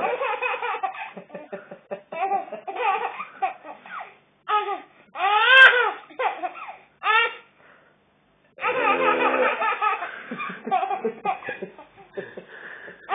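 Baby laughing in repeated bursts of high-pitched laughter, with a pause of about a second two-thirds of the way through.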